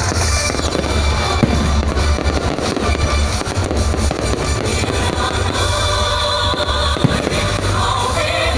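Fireworks bursting, with sharp bangs about a second and a half in and again near seven seconds, over loud music with a heavy bass.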